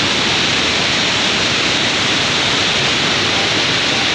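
White water of Bushkill Falls cascading over rocks at close range: a steady, loud rush of falling and splashing water.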